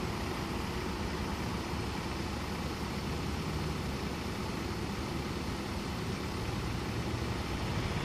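A steady, low engine hum under a constant hiss, like a vehicle idling.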